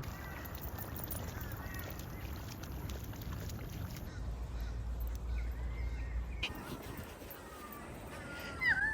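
Birds calling faintly over a steady background noise, with a sharper, gliding call near the end.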